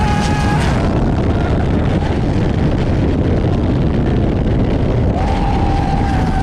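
Turbo diesel engine of a racing longtail boat running flat out, a loud steady noise mixed with wind rushing over the microphone. A steady high tone sounds briefly at the start and again from about five seconds in.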